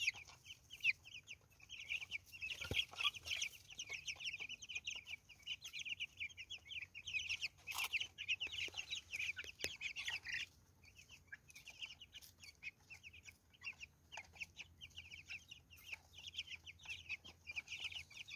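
A flock of young broiler chickens calling, many short high-pitched peeps overlapping continuously; the calling thins out and quietens after about ten seconds.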